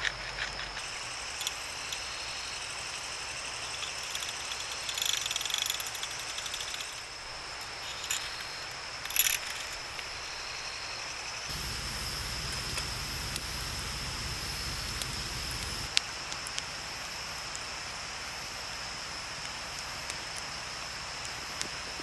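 Steady high-pitched insect chirring, with scattered small clicks and knocks, a louder rustle about nine seconds in, and a low rumble for a few seconds past the middle.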